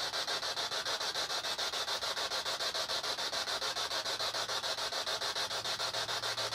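Electronic device giving out a steady, evenly chopped hiss of static, pulsing about ten times a second; a low steady hum joins about two thirds of the way in.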